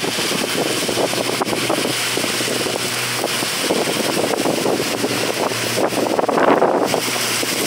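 Car driving along a wet street in rain, heard from inside: a steady wash of rain and tyre noise with a low hum underneath.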